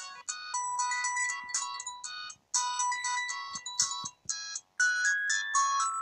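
Samsung SGH-X160 mobile phone playing one of its built-in ringtones through its small speaker: a melody of short electronic notes that breaks off briefly a few times.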